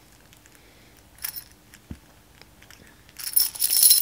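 Links of a thick gold-tone chain necklace clinking and jangling as it is fastened and adjusted at the neck: a few faint clicks, a short jangle just over a second in, and a louder jangle near the end.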